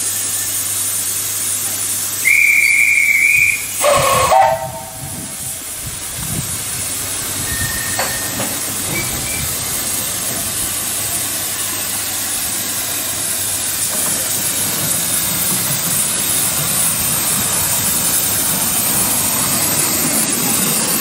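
Narrow-gauge Bagnall steam locomotive Sea Lion hissing steam, with two whistle blasts: a high one lasting about a second, about two seconds in, then a shorter, lower one about four seconds in. The steady steam hiss carries on as the train moves off.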